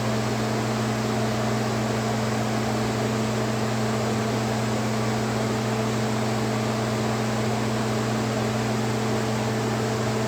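Steady electric hum with an even fan-like hiss from a household appliance running, unchanging throughout.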